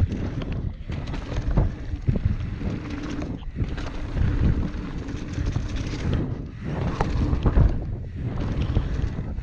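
Wind buffeting the microphone over the rumble and rattle of a steel hardtail mountain bike, a 2017 Ragley Blue Pig, ridden fast down a rough dirt trail, with frequent sharp knocks and clatter from the bike.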